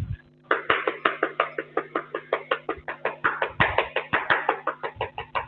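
Chalk on a blackboard: a quick run of short taps and scrapes, about seven or eight a second, as words are written on the board. A steady low hum runs underneath.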